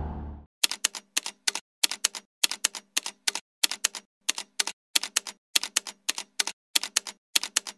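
Typewriter sound effect: sharp key clacks in small irregular groups of two or three, a few strokes a second, as text is typed onto the screen.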